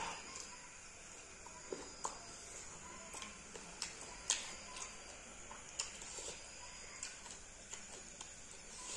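Fingers mixing rice with fish curry on a steel plate: soft, irregular wet clicks and squishes, some sharper than others.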